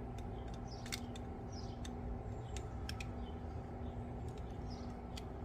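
Faint, scattered small metal ticks as a screw is threaded back into the pivot of a pair of tack nippers, over a steady low hum, with a few faint high chirps.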